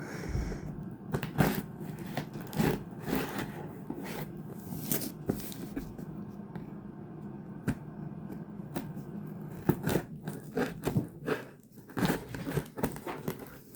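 Packaging being opened by hand: irregular tearing, scraping and crinkling, with sharp rustles coming in uneven bursts.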